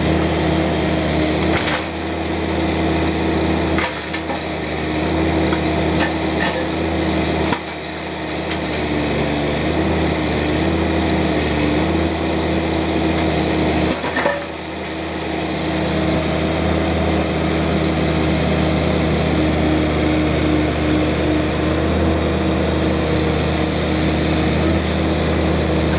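Bobcat mini excavator's diesel engine running steadily at work, its note wavering slightly in the middle. Several sharp knocks and clunks, the strongest about 7.5 and 14 seconds in.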